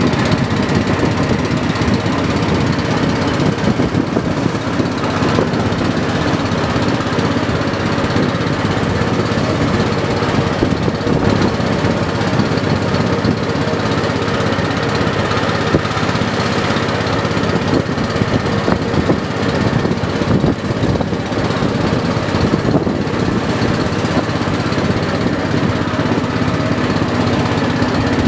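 Engine of a wooden river boat running loudly and steadily while under way.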